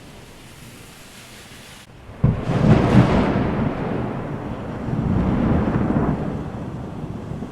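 Thunder: a low hiss and rumble, then a sudden crack about two seconds in that breaks into a loud rolling rumble, swelling again a few seconds later before fading.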